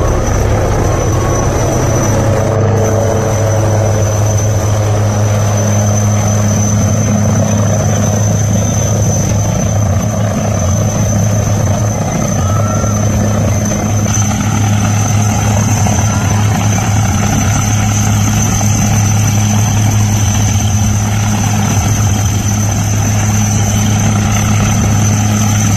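HAL Dhruv Advanced Light Helicopter running steadily overhead: a loud, even beat of the main rotor with a steady high whine on top.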